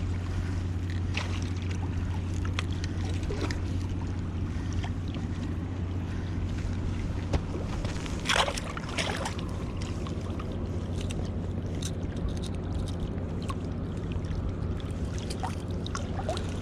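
A steady low motor hum runs throughout, with scattered light clicks and a brief louder rustle about eight seconds in.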